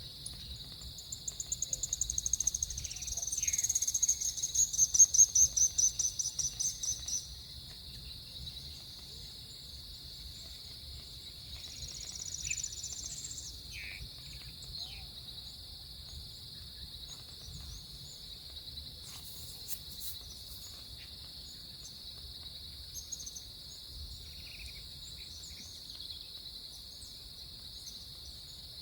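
Insects singing in a steady, unbroken high drone. A run of rapid high chirps, several a second, comes in near the start, swells for a few seconds and stops, with a shorter run later on.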